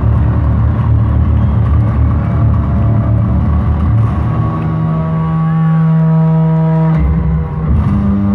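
Hard rock band playing live at arena volume: distorted bass and guitars, with a heavy, rumbling low end. About four seconds in, the band holds a sustained chord, breaks off briefly just after seven seconds, then hits another held chord.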